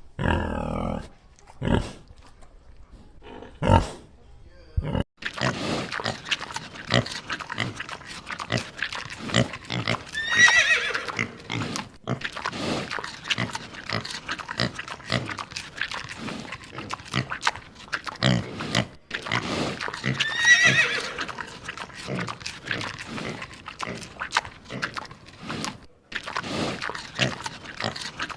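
Farm animal sound effect: a dense run of livestock noises with many short knocks, and a wavering high call that comes once about ten seconds in and again about ten seconds later, as a looped recording.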